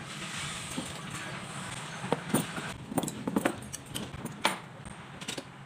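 Sharp metallic clinks and knocks, about half a dozen scattered over a few seconds, as tools and starter parts are handled, over a steady hiss.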